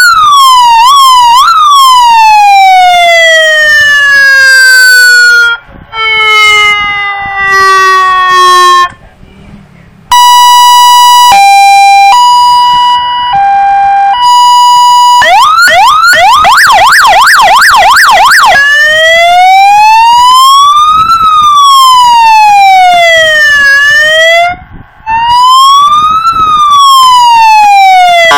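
A 50-watt six-tone electronic siren played loud through its speaker, stepping through its tones. First a few quick chirps and two long falling glides, then a steady two-tone hi-lo, then a fast yelp of about four sweeps a second, and last a slow wail rising and falling twice.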